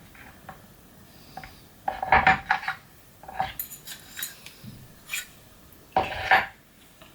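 Hard metal objects clinking and clattering as they are handled and set down, in several short bursts. The loudest come about two seconds in and again near the end.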